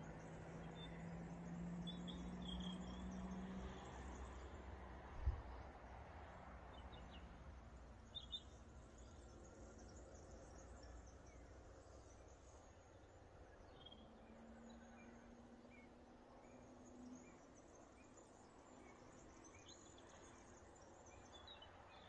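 Near silence: faint outdoor ambience with scattered faint, high bird chirps and a low hum that comes and goes, broken once about five seconds in by a single dull thump.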